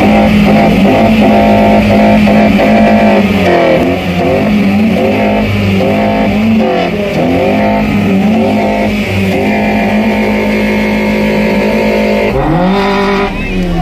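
Tuned VW Golf Mk1 engine held at high revs in a loud, steady drone that dips briefly a few times and drops away near the end. Guitar music plays over it.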